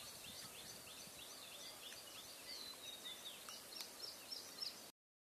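Faint birdsong over quiet outdoor ambience: a run of short, high chirps repeating a few times a second, with a longer falling whistle near the start and again past the middle. The sound cuts off abruptly near the end.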